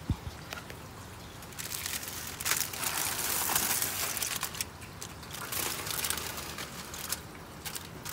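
Aluminium foil crinkling and crackling as a foil-wrapped fish packet is handled and set down on grill grates, loudest a couple of seconds in. A low thump right at the beginning.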